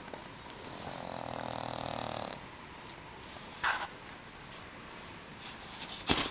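A sleeping dog snoring: one long drawn-out snore about a second in. A brief sharp sound follows about halfway through, and a cluster of sudden sharp sounds comes near the end.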